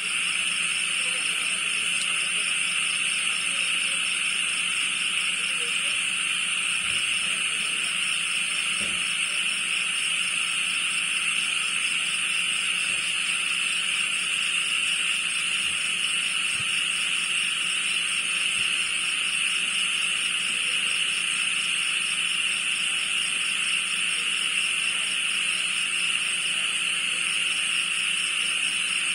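Dense chorus of night-calling insects, a steady shrill trilling with a finer pulsing buzz above it, unbroken throughout.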